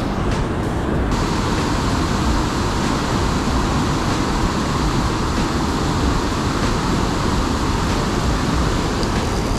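Steady rushing roar of water pouring through a dam, with a brighter hiss coming in about a second in.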